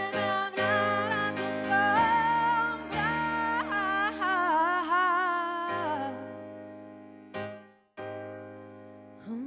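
Slow, tender music: a wavering melody line over held keyboard chords that dies away about six seconds in, followed by quieter held notes.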